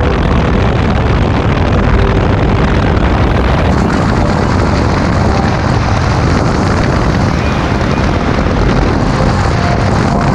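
Helicopter in flight heard through its open door: steady rotor and engine noise mixed with heavy wind rushing over the microphone.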